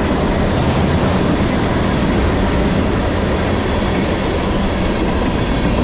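Tank cars of a freight train rolling past: a loud, steady rumble and rattle of steel wheels on the rails.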